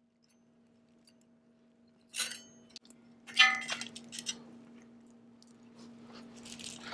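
A new steel bicycle chain clinking and rattling as it is handled and threaded through the rear derailleur. After about two seconds of near quiet come a few sharp jingles of the links, then a softer rattle near the end.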